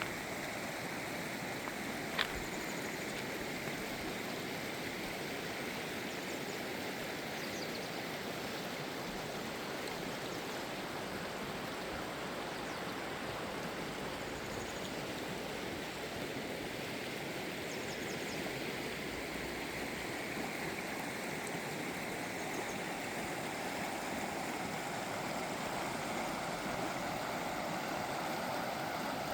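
River water rushing steadily over and around rocks, with a single sharp tick about two seconds in.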